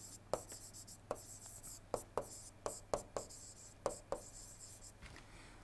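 Stylus writing on a tablet screen: a faint run of light taps and scratches as words are handwritten, stopping a little after four seconds in.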